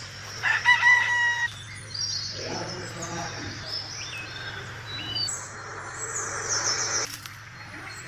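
Birds calling: a held crowing call about half a second in, followed by short chirps and sweeping whistles, and a fast high-pitched trill in the second half.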